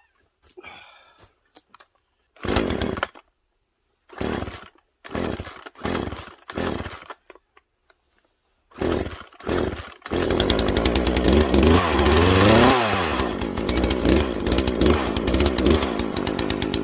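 Poulan Pro two-stroke chainsaw being pull-started cold after months of winter storage: about seven short pulls of the recoil starter, then the engine catches about ten seconds in and keeps running. It revs up and back down once, then settles into a steady run.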